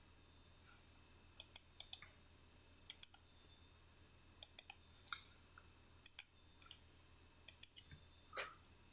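Typing on a smartphone: faint, irregular sharp clicks, mostly in quick runs of two or three taps.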